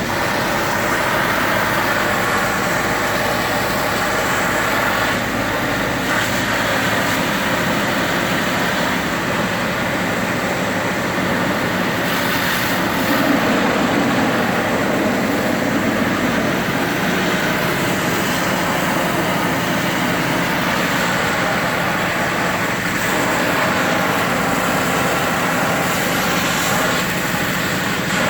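Steady running noise of heavy diesel machinery at work, an even mechanical din with no distinct crashes or impacts.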